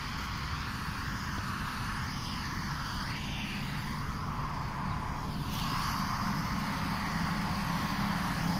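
Steady low hum and rumble from a parked suburban electric train, growing slightly louder over the last few seconds.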